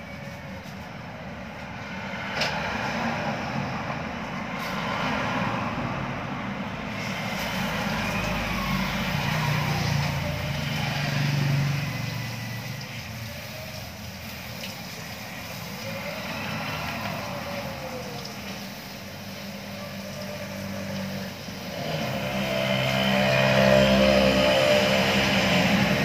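Motor vehicles passing one after another, each swelling and fading, with engine pitch sliding as they go by; the loudest passes about two-thirds of the way through.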